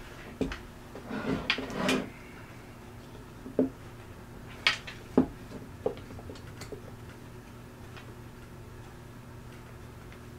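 Small scattered clicks and taps of a screwdriver and grip screw being worked against a pistol's grip panel while the screw is coaxed into its hole, thickest in the first two seconds, then only a steady low hum.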